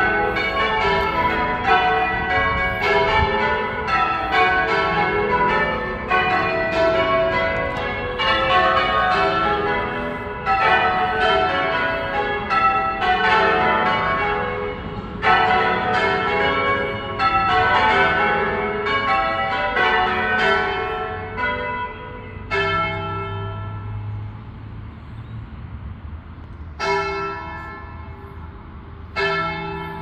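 Church tower bells ringing, several bells struck one after another in a rapid, overlapping stream. About three-quarters of the way through the ringing thins out to a few lone strokes, each left to ring on and fade.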